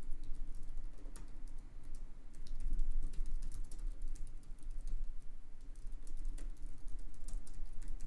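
Typing on a computer keyboard: a quick, irregular run of keystroke clicks over a steady low hum.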